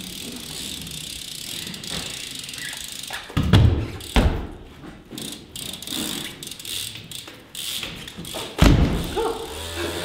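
BMX bike rolling and manualing on a plywood floor, its tyres hissing on the wood. Heavy thuds come as the wheels land: two about a third of the way in and a louder one near the end.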